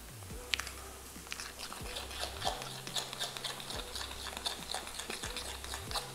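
A spoon stirring thick cream of rice and blueberries in a glass bowl, with frequent small clicks and scrapes of the spoon against the glass.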